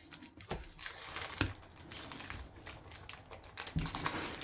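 Yu-Gi-Oh trading cards being handled and flipped through, with light rustling and a few sharp clicks as the cards slide against each other.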